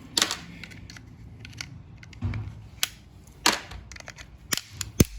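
Sharp metallic clicks and snaps, about six in five seconds with the loudest near the end, as small brass contacts are worked loose from a 1987 microwave's switch and control parts.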